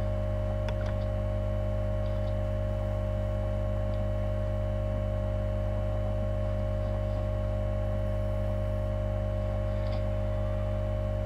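Steady electrical hum with a constant pitch, and a few faint clicks about a second in, like mouse clicks.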